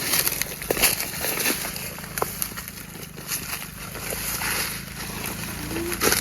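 Dry forest leaf litter crackling and rustling in irregular small snaps, over a steady high hiss.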